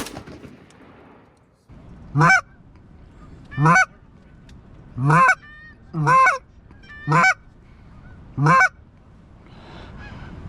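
Canada goose honks: six loud two-note honks, each a low note that breaks upward into a higher one, coming at a steady pace of roughly one every second and a half, starting about two seconds in. The steady pace fits a hunter's goose call worked at approaching geese as well as live geese.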